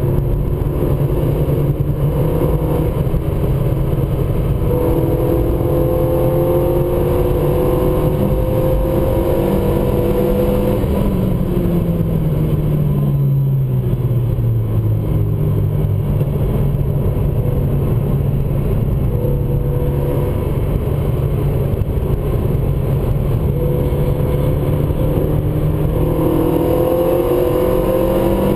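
Renault Mégane RS's turbocharged four-cylinder engine heard from inside the cabin under track driving, over tyre and road noise. The revs fall away about eleven seconds in, hold steady lower for a long stretch, then climb again near the end.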